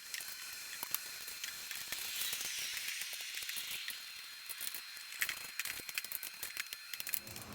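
Aerosol can of Plasti Dip spraying in a steady hiss, with scattered sharp clicks throughout.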